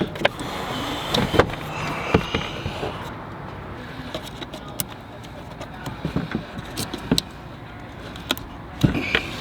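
Irregular clicks, knocks and scraping of hands working the plastic air filter housing of a Ram 3500 and pulling out the old air filter, busier in the first couple of seconds and again near the end.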